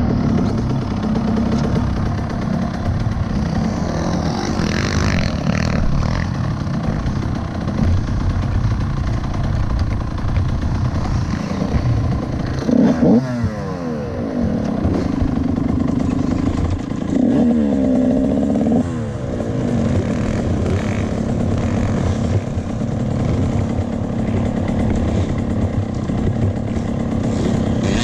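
Motocross bike engines running, with the engine pitch swinging up and down as the throttle is worked, twice, about halfway through and again a few seconds later.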